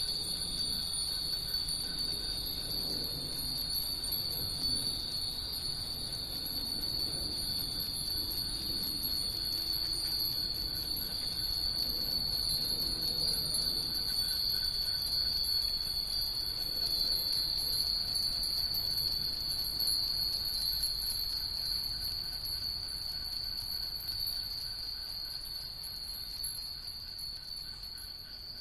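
Hundreds of furin (Japanese wind bells) hung on lines, tinkling continuously in the breeze as a dense overlapping jingle of many small strikes. A steady high drone runs underneath, and the bells thin out a little near the end.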